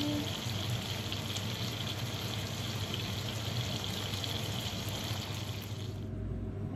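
Salmon fillets, asparagus and cherry tomatoes sizzling steadily in a frying pan, the hiss cutting off abruptly about six seconds in.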